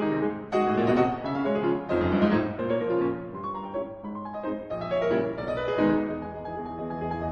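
Background piano music, a melody of struck notes over sustained chords.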